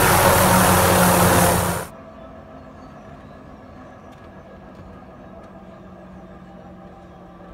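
MD 500-type light turbine helicopter running on the ground with its rotor turning: a loud rushing turbine-and-rotor noise with a low steady tone, which drops off abruptly a little under two seconds in to a much quieter steady hum.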